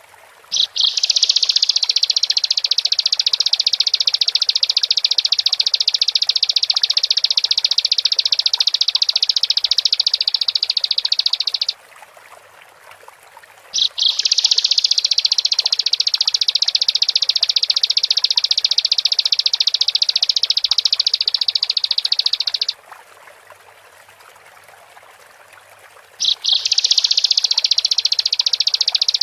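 Bar-winged prinia (ciblek) song: long bouts of rapid, high-pitched trilling, each lasting about eleven seconds. The first starts about a second in, the next after a short pause, and a third near the end. Each bout opens with a couple of sharp notes.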